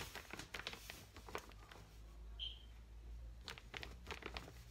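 Faint scraping and tapping of a plastic measuring cup scooping rice flour in a plastic bowl, in two short spells, with a brief high squeak about halfway through.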